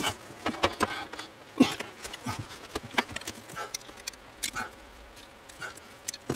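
Irregular clicks, taps and rattles of hands working a plastic wiring-harness connector loose in a truck's door wiring, busiest in the first few seconds.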